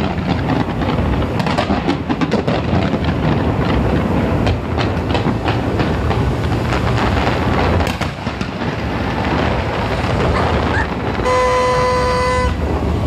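Large fireworks display at close range: a continuous barrage of bangs and crackling over a heavy rumble. Near the end a horn sounds one steady note for about a second.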